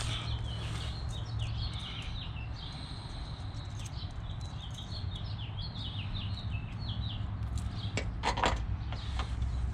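Small birds chirping in the background, a long run of short falling chirps, over a steady low hum. A few sharp clicks come about eight seconds in.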